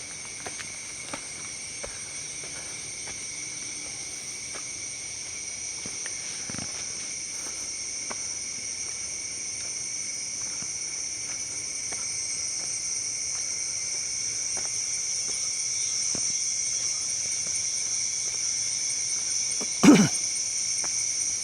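Insects in the jungle shrilling steadily in several high-pitched bands, slowly growing louder. A single short thump near the end is the loudest moment.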